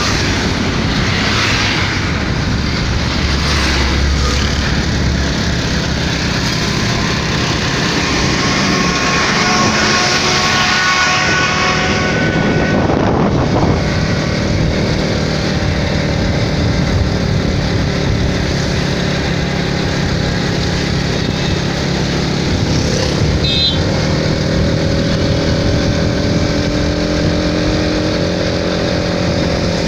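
Motorcycle engine running steadily at road speed, with wind and road noise over it.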